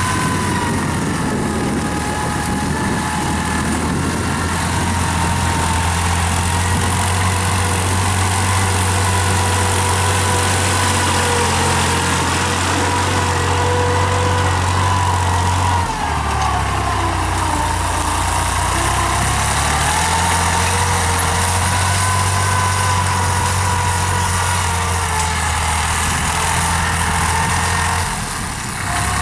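New Holland TT55 tractor's diesel engine running steadily under load while dragging a levelling harrow across the field, with a high wavering whine above the engine note. The engine note steps lower about halfway through.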